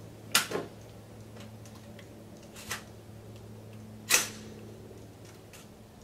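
Gunshots on an outdoor shooting range: two sharp, loud reports about four seconds apart, the first followed quickly by a weaker one, and a fainter shot in between, each with a short echo. A steady low hum runs underneath.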